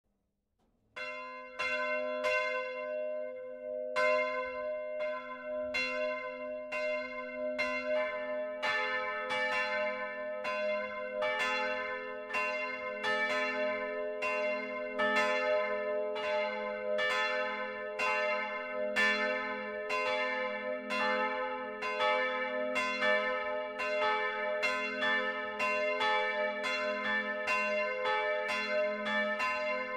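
Swinging church bells heard from inside the bell tower. One bell starts ringing about a second in, and a second, lower bell joins about eight seconds in, its strokes overlapping the first.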